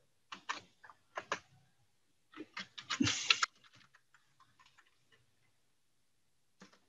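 Computer keyboard typing: a few separate keystrokes in the first second and a half, then a fast run of keystrokes about two and a half to three and a half seconds in, the loudest part, with fainter taps after it and a single click near the end.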